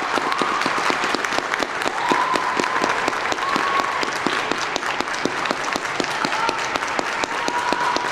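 Audience applauding steadily, a dense patter of clapping, with a few high calls or whistles held over it now and then.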